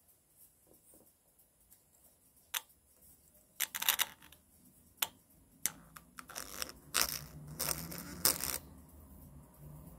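Small toy loudspeaker being overdriven until its voice coil burns out: scattered sharp crackles and pops that thicken into a run of crackling between about four and eight and a half seconds in, with a low hum coming in under it about six seconds in.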